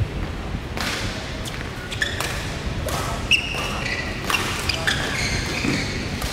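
Badminton rally: sharp smacks of rackets striking the shuttlecock, mixed with shoes squeaking and thudding on the court mat as the players move.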